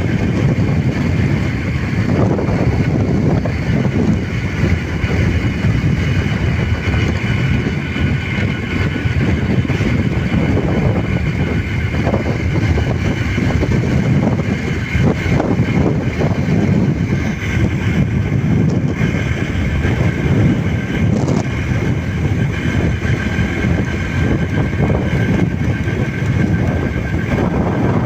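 Steady rumble of a moving vehicle with wind buffeting the microphone, and a faint steady whine above it.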